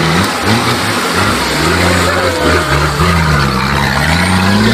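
An off-road buggy's engine revving hard, its pitch rising and falling, with a rough rushing noise over it.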